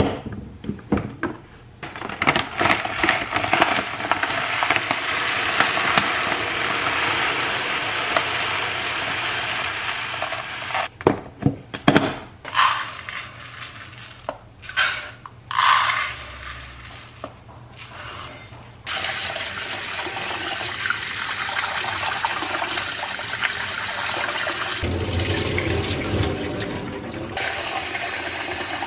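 Kitchen tap water running into a rice cooker's inner pot in a stainless steel sink, to wash the rice and fill the pot. Around the middle the flow stops for a spell of short bursts and knocks as rice is poured from a measuring cup and the pot is handled. Near the end the filling sound gets deeper as the pot fills.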